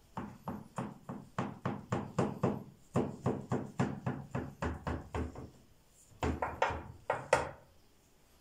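Quick knife strokes chopping down through layered goulash (phyllo) pastry in a metal baking tray, knocking about five times a second. They pause briefly after about five seconds, then a few more sharp cuts follow.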